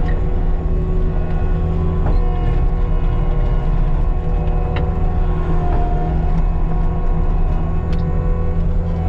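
Caterpillar 299D2 compact track loader running steadily, a low diesel drone with a steady hydraulic whine over it and a few faint clicks.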